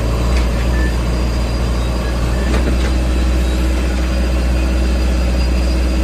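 Diesel engine of a JCB 3DX backhoe loader running steadily, a deep even drone heard from inside the operator's cab.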